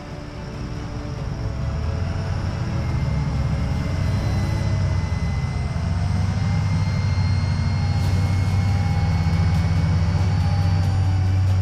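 Diesel engines of Fendt Vario tractors running while pulling a plough: a deep steady drone with a faint whine drifting up and down in pitch above it. It swells over the first two seconds and cuts off abruptly at the end. Music fades out underneath in the first few seconds.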